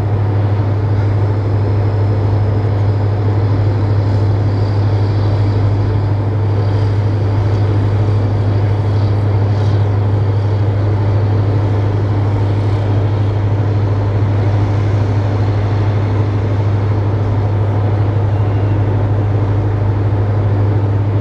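Large engine running with a steady, unchanging low drone.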